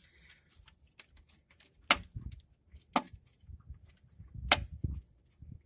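Sharp clicks, three loud ones among fainter ticks, as the emergency generator's electric start switch is pressed; the engine neither cranks nor starts.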